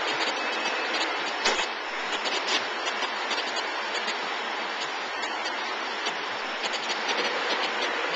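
Steady machine noise, an even hiss, with scattered light clicks and ticks and a sharper click about a second and a half in.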